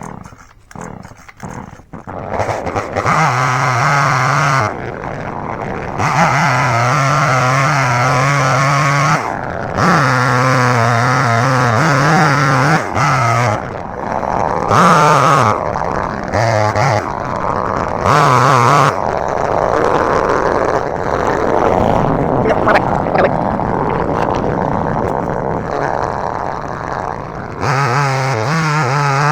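Small 12-inch chainsaw running and cutting into a tree trunk to fell it. It starts about two seconds in, and its pitch shifts and breaks repeatedly as the throttle is worked and the chain bites into the wood.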